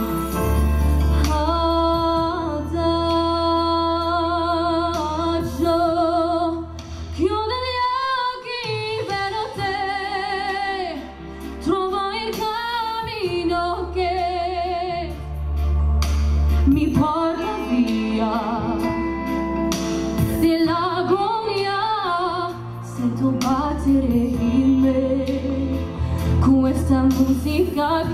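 A woman singing solo into a microphone over instrumental accompaniment with a steady bass, her held notes carrying a wide vibrato.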